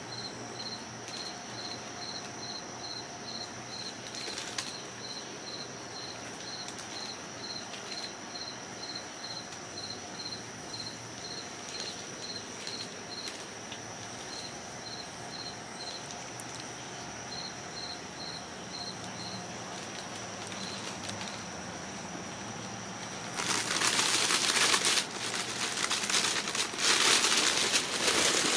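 Kittens scrambling in and against a crinkly fabric play tunnel, giving loud bursts of crinkling rustle from about 23 seconds in. Before that, only faint high chirps at nearly two a second, over a faint steady high tone.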